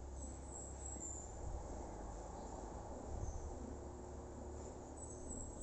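Crickets chirping in short, high trills, faint and intermittent, over a steady low rumble and soft rustling.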